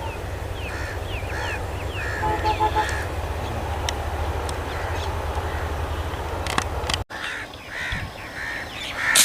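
Several birds calling in short, repeated notes over a steady low rumble that drops away about seven seconds in.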